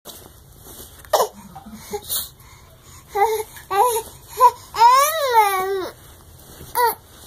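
A baby fussing and complaining: a few short, high whiny sounds, then a longer cry about five seconds in that rises and then falls in pitch, and one more short cry near the end.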